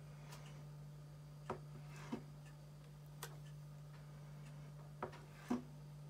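Light taps and clicks of a knife cutting a soft mozzarella ball on a plastic cutting board and of slices being laid on a pizza. There are about five separate taps, the two near the end the loudest, over a steady low hum.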